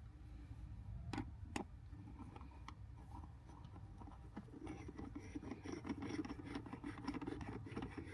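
Shifter parts being handled and fitted by hand: two sharp clicks a little over a second in, then, from about halfway in, a few seconds of close scratching and rattling with many small clicks.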